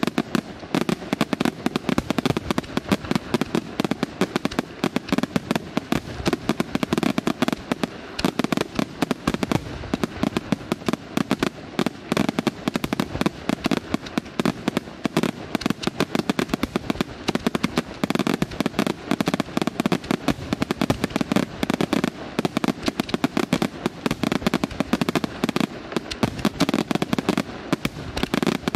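Aerial firework shells bursting in a dense, continuous barrage, with many sharp bangs and crackles a second and no pause.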